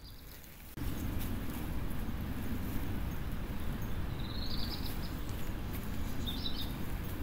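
Steady rumbling background noise that starts suddenly about a second in, with faint light clicks, and a bird chirping briefly twice, about four and six and a half seconds in.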